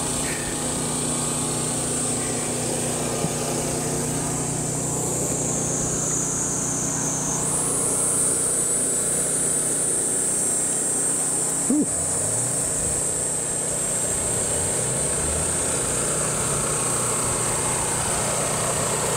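A vehicle engine running steadily at idle, with a steady high-pitched hiss over it that steps up in pitch about seven seconds in. There is a single short knock about twelve seconds in.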